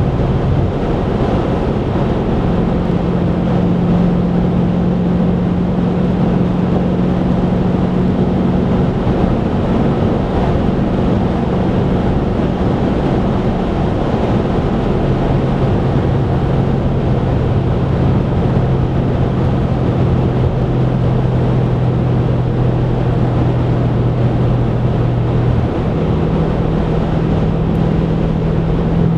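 Car cruising at motorway speed, heard from inside the cabin: steady tyre and road noise with a low engine drone whose pitch shifts a few times.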